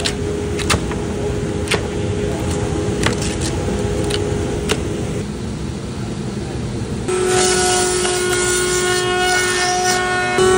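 Steady machine hum with scattered sharp clicks and taps as boards are handled. About seven seconds in, a table-mounted router's high steady whine takes over, louder, with a hiss as a flush-trim bit routes the edge of a wooden cutting board.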